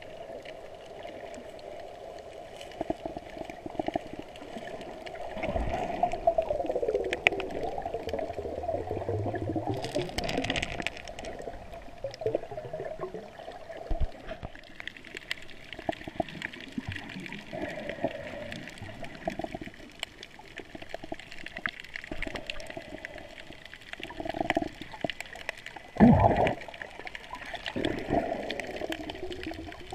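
Underwater sound through a camera held below the surface: muffled swishing and gurgling water with a steady low hum. There are scattered small knocks, and one loud knock about 26 seconds in.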